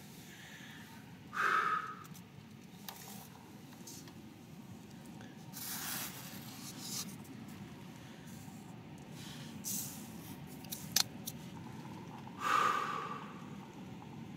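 Steady low rush of a strong wind against a tent, heard from inside, with a few short breathy noises and rustles standing out, loudest about a second and a half in and near the end.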